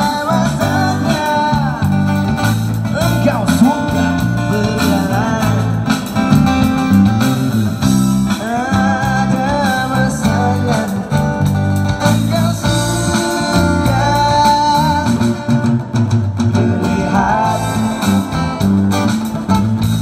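Live band music: an acoustic guitar played through an amplifier over a drum kit and a steady bass line, with a singing voice.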